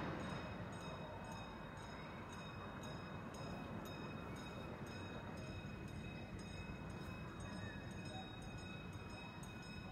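Wooden roller coaster train's rumble dying away in the first moment, leaving a faint, steady outdoor background hum with a few thin, high, steady tones.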